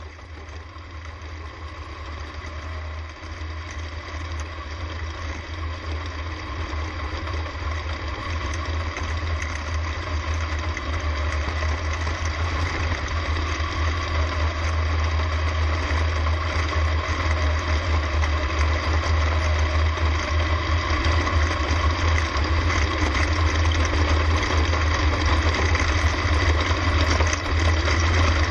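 Winged dirt-track sprint car's V8 engine running steadily, heard from its cockpit, with other sprint cars' engines around it. The sound gradually grows louder.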